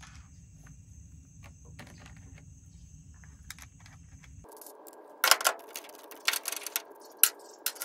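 Metal rack hardware clinking and clanking as parts are sorted and handled, with a run of sharp knocks starting a little past the midpoint. Before that there is only a faint steady high insect trill and light handling ticks.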